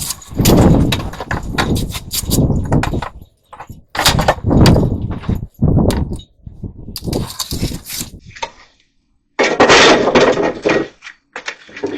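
Rotten wood being broken out and pried loose: irregular loud bangs, cracks and crunching in separate bursts, with a longer, denser stretch of crunching about ten seconds in.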